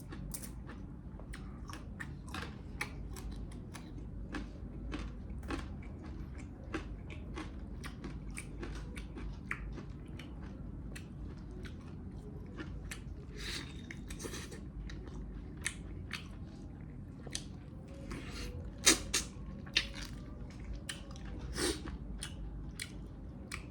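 Close-up sounds of a person chewing and biting mutton leg pieces: a steady run of short wet clicks and smacks, with a few louder bites near the end.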